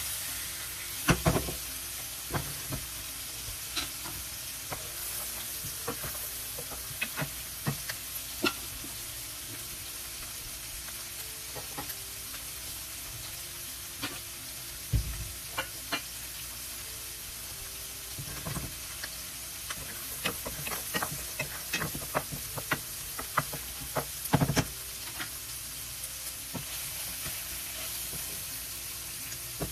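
Salmon fillets and diced onion frying in oil in two pans, a steady sizzle. Scattered clicks, scrapes and knocks of a spatula against the pans run through it.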